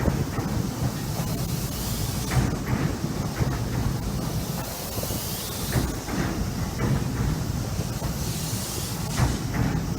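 Chuo Line electric train running slowly, a steady low rumble with a hiss above it and an occasional wheel clack every few seconds. It is crawling under a strong-wind speed restriction.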